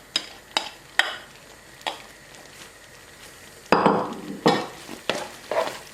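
Spoon or spatula clicking against a cooking pan a few times, then a sudden louder scraping and stirring about four seconds in as vegetables are mixed into thick white sauce.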